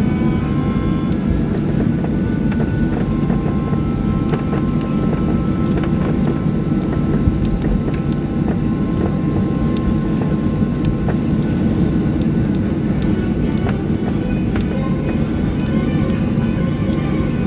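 Cabin noise inside a Boeing 737-800 taxiing: the steady rumble of its CFM56 jet engines at low thrust and the airframe rolling, with small clicks and rattles from the cabin.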